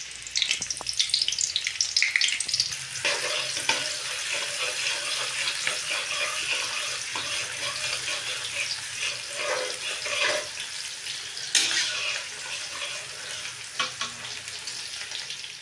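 Chopped onions sizzling as they fry in hot oil in a large kadai, with a metal spatula stirring them and scraping the pan a few times.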